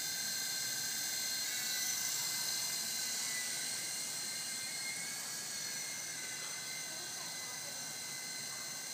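S032G 3.5-channel R/C toy helicopter in flight: a steady, high-pitched electric motor and rotor whine that grows a little fainter over the second half.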